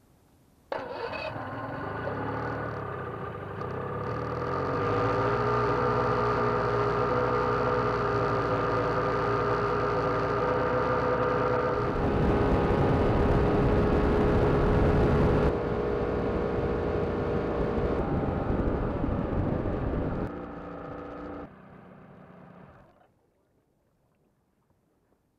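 The 1983 Skeeter bass boat's outboard motor running under way. It comes in suddenly about a second in and runs louder after a few seconds, with a rush of wind and water in the middle, then drops back in steps and dies away near the end.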